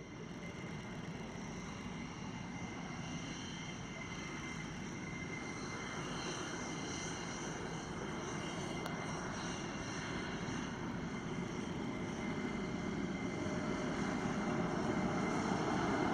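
Panavia Tornado GR4's twin RB199 turbofan engines running at taxi power: a steady jet whine with high whistling tones, growing gradually louder as the jet nears.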